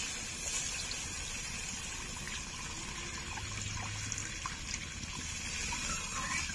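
Water pouring and sloshing into a hot pan of fried-down curry masala, with a few light clicks.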